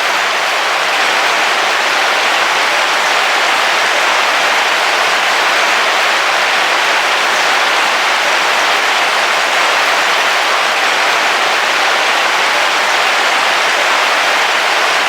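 Heavy rain falling steadily on a camping car's roof, heard from inside as an even, unbroken hiss.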